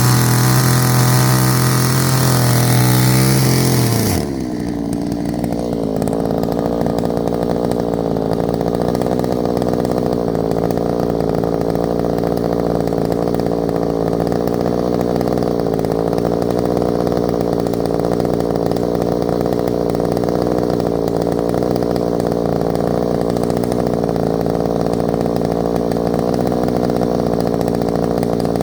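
Two-stroke chainsaw running at full throttle, then dropping to a steady idle about four seconds in.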